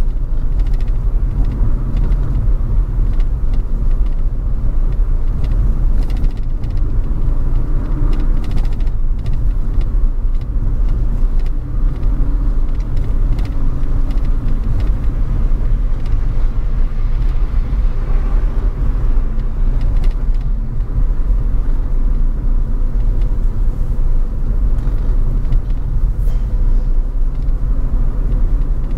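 Car driving steadily, with a continuous low rumble of engine and road noise picked up from the moving car. Faint clicks and ticks come and go.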